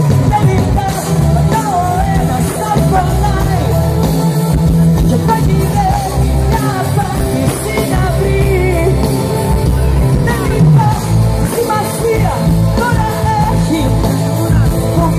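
Live Greek pop band playing a song with singing over a steady bass and drums, heard loud from within the audience.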